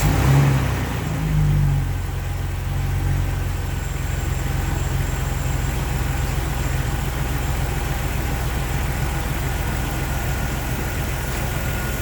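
Jeep Wrangler TJ's 4.0-litre straight-six catching after a start, revving up briefly twice in the first two seconds, then settling into a steady idle. This is the engine being checked for a misfire and rough idle.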